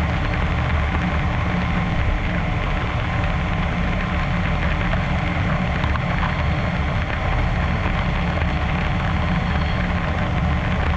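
CNC lathe cutting a Haynes 188 cobalt-nickel superalloy part with an internal (ID) tool, a steady machining run with the spindle and machine hum underneath and a faint high whine partway through.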